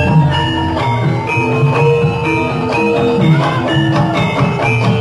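Javanese gamelan playing dance accompaniment, with struck metallophone keys ringing out a melody note by note.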